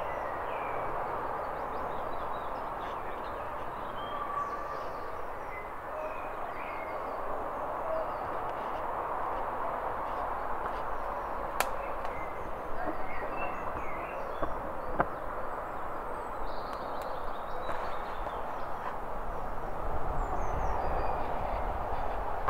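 Small birds chirping and singing in short scattered calls over a steady background rush of outdoor ambience, with one sharp click about halfway through.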